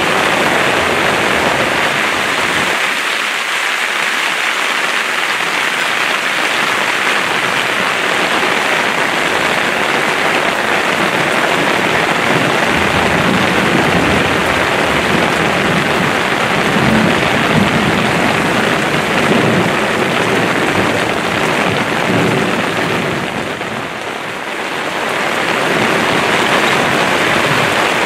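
Heavy thunderstorm rain pouring steadily, with a low rumble of thunder rolling through the middle of the stretch.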